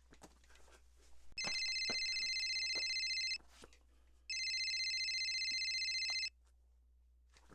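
Nextel flip phone ringing: two electronic rings of about two seconds each, a fast-warbling high tone with a pause of about a second between them. A few faint clicks come before the first ring.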